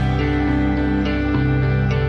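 Background music: a gentle instrumental piece with held notes.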